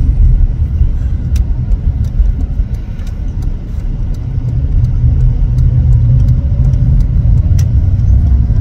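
Steady low rumble of a car driving on a snow-packed road, heard inside the cabin, with a few faint clicks.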